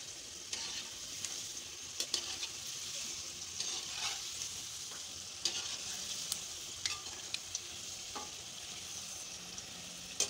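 Battered potato wedges deep-frying in hot oil on a lowered flame: a steady sizzle with scattered sharp pops and clicks as a slotted spoon moves them through the oil.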